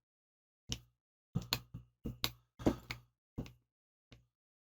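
About a dozen short, irregular clicks and knocks of a hand tool working at stuck screws on a small two-stroke engine, screws the owner thinks are held with Loctite.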